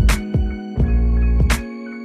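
Background music: sustained notes over a deep bass, with a sharp percussive hit about every second and a half, two of them falling here.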